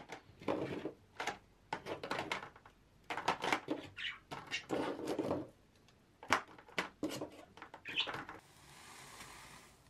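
Objects being handled: an irregular run of short knocks, clatters and rustles, then a soft steady hiss for about a second and a half near the end.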